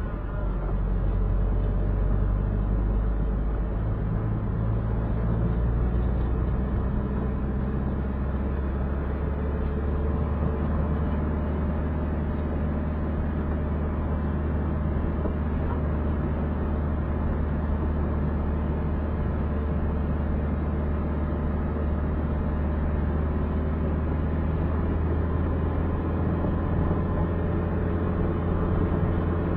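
A car driving: its engine runs steadily under road noise, and the engine note shifts a few seconds in, then holds.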